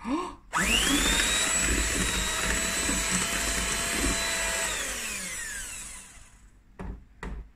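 Ottimo electric hand mixer beating eggs into creamed butter and sugar in a glass bowl. The motor spins up with a quick rising whine about half a second in, runs steadily for about four seconds, then winds down with a falling pitch, and two clicks follow near the end. The mixer is running hot after long use.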